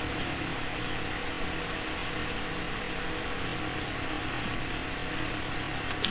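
A steady mechanical hum holding several constant tones, with a faint even hiss and no clear cutting strokes.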